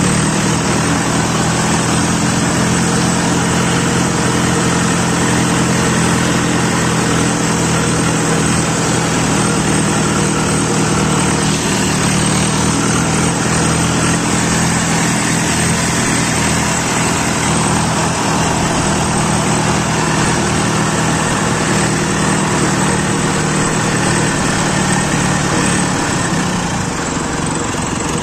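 Tractor's diesel engine running steadily at working speed, powering a tractor-mounted combine harvester that is cutting paddy, heard from the driver's seat.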